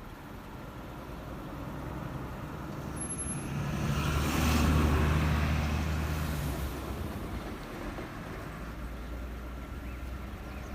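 A heavy road vehicle passes close by: its engine hum and tyre noise build up, peak about four to five seconds in, then fade away.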